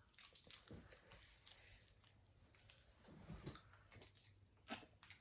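Near silence with faint, scattered soft clicks and mouth sounds of a child eating a hard candy stick.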